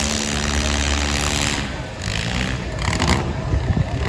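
Four-cylinder demolition derby cars' engines running and revving, steady at first and then rougher, with a few short knocks near the end.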